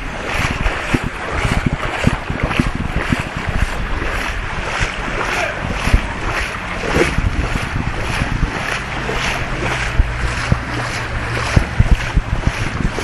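Footsteps wading through ankle-deep floodwater, splashing about twice a second at walking pace, over heavy rain and wind buffeting the microphone.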